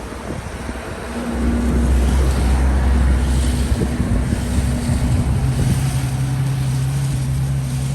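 Snowplow truck's engine running close by, a deep steady drone that grows louder about a second in and changes pitch around five seconds in, with wind blowing across the microphone.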